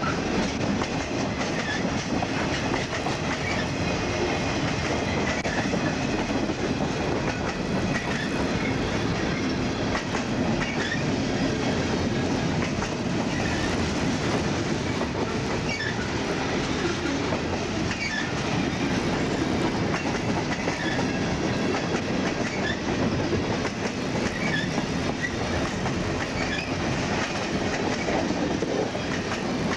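CSX freight train cars rolling past steadily, wheels clicking over rail joints, with scattered short, high wheel squeals.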